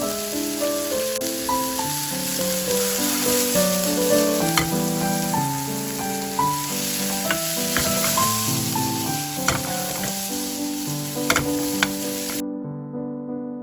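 Food frying in a hot pan, sizzling steadily, with a few sharp clicks of utensils against the pan; the sizzle cuts off abruptly near the end.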